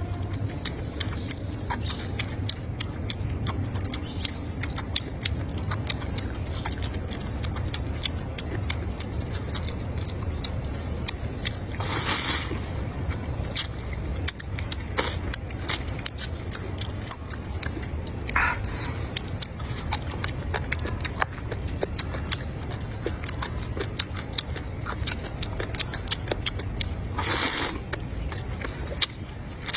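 Close-up eating sounds: chewing and crunching of food as a dense run of small clicks and smacks over a steady low hum. There are three short breathy bursts, about twelve, eighteen and twenty-seven seconds in.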